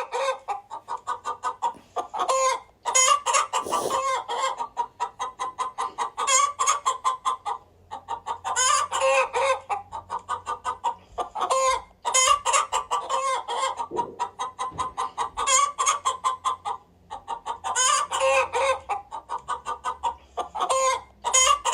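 Chickens clucking in rapid, evenly repeated calls that come in runs of a few seconds with short pauses between them.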